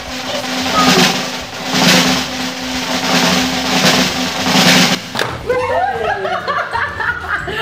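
Suspense music laid over the action: a steady low drone with drum hits about once a second, cutting off abruptly about five seconds in. Right after it come shrieks of laughter as the toy sprays.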